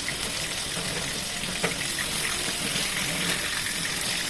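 Marinated chicken pieces frying in hot soybean oil in a kadai: a steady sizzling hiss.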